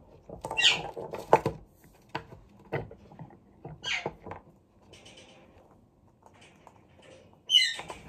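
Pet parakeet giving short, squeaky chirps that fall in pitch: one about half a second in, one about four seconds in, and a quick run of several near the end. Scattered light taps and clicks come in between, from claws and a plastic toy on a wooden table.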